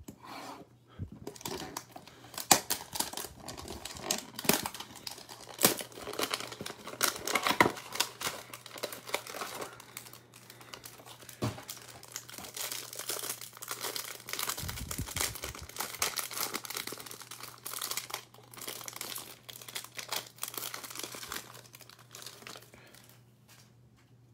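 Trading-card hanger box being opened: cardboard cut and torn, then the foil card pack crinkled and torn open as the cards are pulled out, with many quick irregular crackles and a dull bump about midway.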